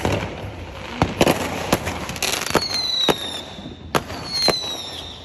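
Fireworks going off: a string of about nine sharp bangs and cracks, with high whistles gliding slightly downward about halfway through and again near the end.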